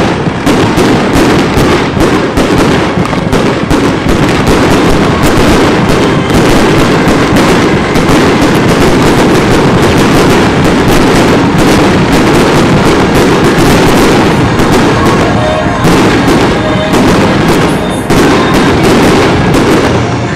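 Fireworks: a loud, dense barrage of shells bursting in rapid succession, bangs and crackles running into one another, thinning out and dying away near the end.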